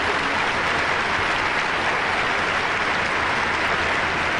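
A large arena audience applauding steadily, greeting a point just awarded by the referee's raised flag.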